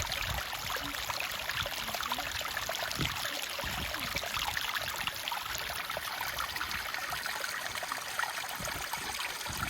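Stream water running steadily, an even rushing hiss of a small creek flowing through a swimming hole.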